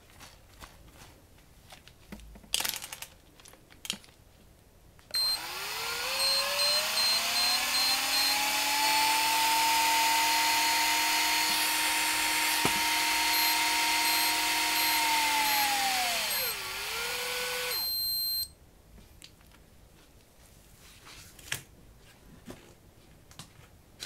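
Ryobi Adventure Dendou VS700 L electric fishing reel's motor winding: a whine that rises in pitch as it spins up about five seconds in, holds steady, then slows, dips and stops about five seconds from the end. A high electronic beep repeats over parts of the run, and handling clicks come before and after.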